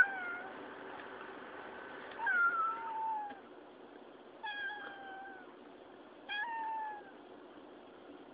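Female calico cat meowing, four meows about two seconds apart, each sliding down in pitch toward its end: a cat asking to be fed.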